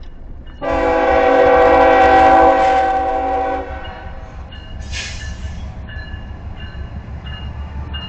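Diesel freight locomotive's air horn sounding one long blast of about three seconds, a multi-note chord, as the train takes the road crossing. This is followed by the low rumble of the locomotives passing and a short hiss about five seconds in.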